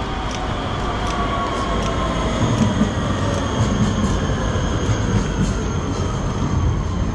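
A rail vehicle running past, with several high tones slowly falling in pitch over a steady rumble, and light clicks.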